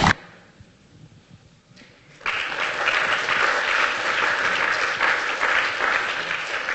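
Audience applauding, starting abruptly about two seconds in and carrying on steadily.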